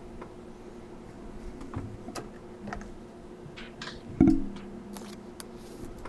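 Scattered light clicks and taps, like keys or small objects on a desk, over a faint steady hum, with one louder knock a little over four seconds in.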